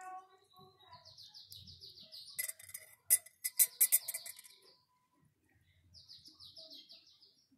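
Sharp clinks of a metal spoon against a ceramic mug, several in quick succession about three to four seconds in, as a kitten paws at it; these are the loudest sounds. Around them a small bird twitters in two quick trills, one early and one near the end.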